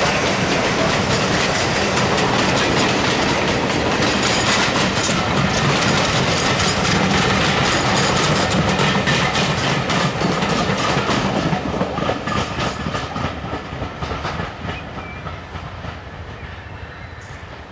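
A rake of railway passenger coaches rolling past at speed, their wheels clicking steadily over the rail joints. The sound fades away over the last third as the train draws off.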